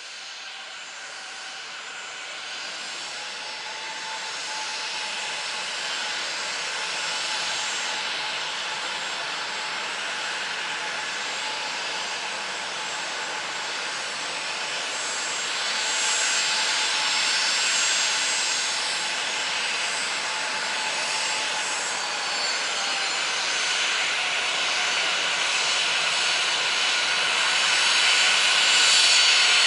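Jet aircraft engines: a steady whine over a rushing roar, growing steadily louder.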